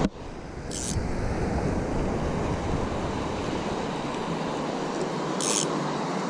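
Small sea waves lapping and wind buffeting the microphone, a steady outdoor wash of noise. Two brief high hisses, about a second in and near the end, cut through it.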